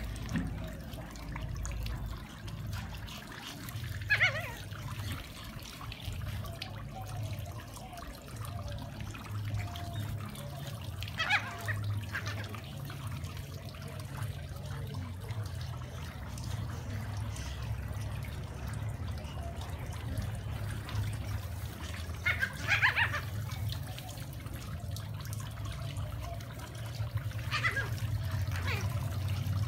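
Small Brussels Griffon dogs play-fighting, giving a few short high yips over a steady low background hum.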